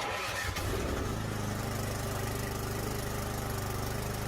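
Craftsman 24-inch snowblower's single-cylinder engine running steadily, having cut in abruptly at the very start; it is running again after carburetor cleaner was sprayed into the spark plug hole to get it going after storage.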